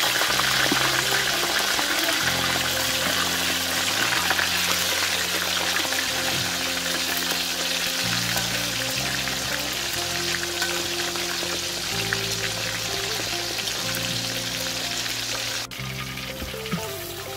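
Pieces of fish deep-frying in hot oil in a steel wok: a steady, loud sizzle that eases a little toward the end.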